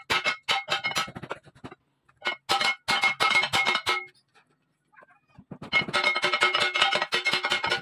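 Rapid sledgehammer blows on the metal blade of a fishing boat's four-blade propeller, each blow ringing with the same metallic tones, in three runs of about four or five strikes a second with short pauses between. The blade is being hammered straight to even out its pitch, which was mis-set and makes the propeller vibrate at low revs.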